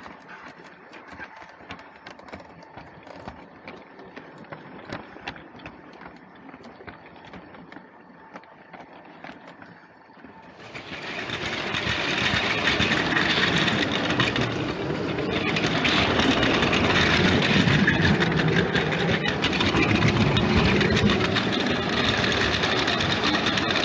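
LEGO train running on its track: light clicking at first, then, about ten seconds in, a sudden jump to a much louder, steady rolling clatter.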